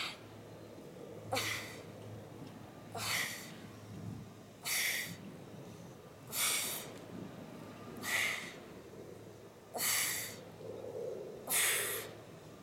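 A woman exhales sharply and noisily once per crunch repetition: seven hissing breaths, about one every 1.7 seconds, pushed out on each curl up.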